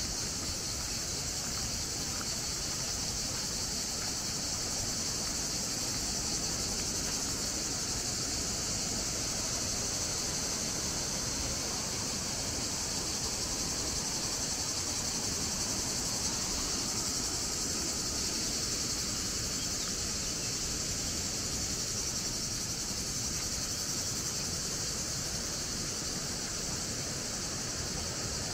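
A chorus of cicadas buzzing steadily and high-pitched without a break, over a low, even rush.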